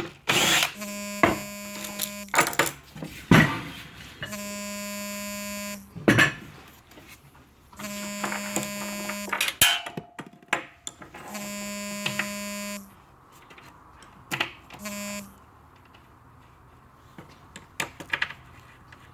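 A small electric motor runs in five short, steady buzzing bursts of about a second and a half each. Clicks and knocks of parts being handled come between the bursts.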